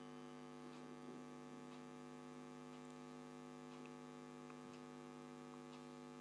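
Near silence: a steady low hum, with a few faint scattered ticks.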